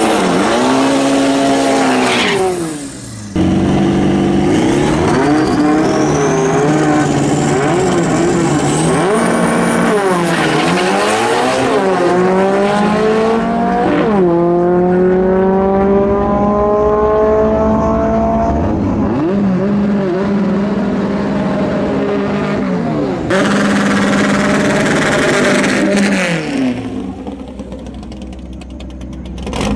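VW drag cars (Karmann Ghias and a Beetle) running hard: engines revved at the line, then accelerating down a drag strip, the pitch climbing and dropping back sharply at each gear change.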